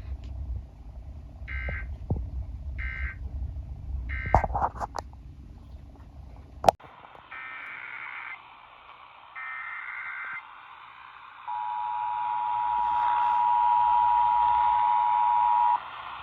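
Emergency Alert System tones from a radio broadcast. Three short data bursts (the end-of-message signal) play over a low rumble. After a sharp click come two longer data bursts of the alert header, then the two-tone attention signal, a steady dual tone held for about four seconds.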